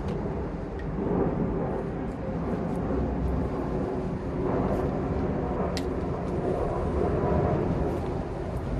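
Steady low drone of a distant engine, swelling a little about a second in and again later, with a faint click about six seconds in.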